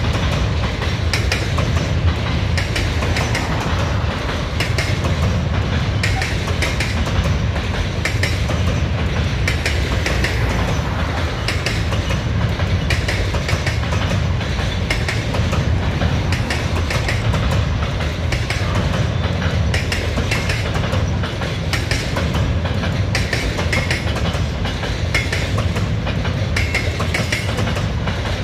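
Freight train of intermodal wagons loaded with lorry trailers rolling past at steady speed: a continuous low rumble, with the wheels clicking over the rail joints in repeated clusters about every two seconds.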